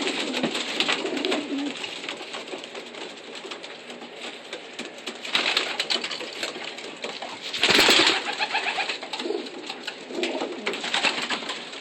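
Racing pigeons cooing inside a loft, with scattered small clicks and one short, loud burst of noise about eight seconds in.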